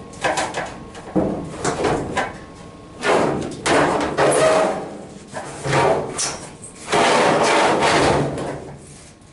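Dryer drum and sheet-metal cabinet knocking, scraping and rattling as the loose drum is lifted out of the dryer, in a run of separate clunks and scrapes with the loudest stretch near the end.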